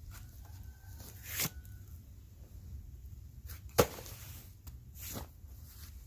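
A few short sharp knocks, the loudest about four seconds in, over a low steady hum.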